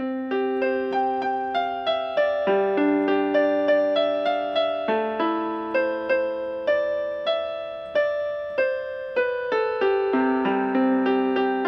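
Background music on piano or electric piano: a gentle melody of plucked-sounding notes at an even pace, each note fading after it is struck.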